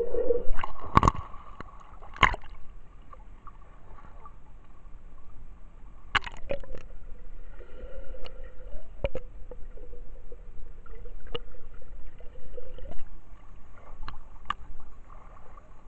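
Muffled underwater sound of a swimming pool picked up by a submerged camera: water sloshing and bubbling around it, with a steady hum and several sharp knocks.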